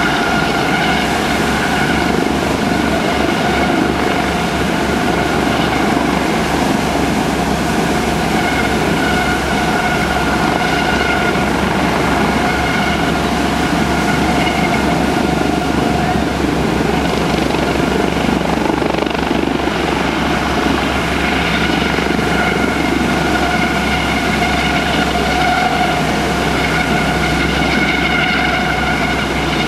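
US Coast Guard HH-65C Dolphin twin-turbine helicopter hovering low over the sea: steady rotor and turbine noise with a high, even whine that holds its pitch.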